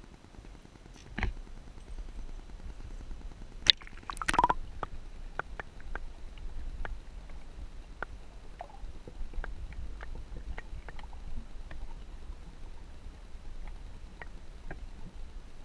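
A GoPro camera in its waterproof housing is dipped into lake water: a thump, a sharp click and a brief splash in the first few seconds. Then a muffled, low underwater rumble with scattered small clicks and knocks from the housing being handled.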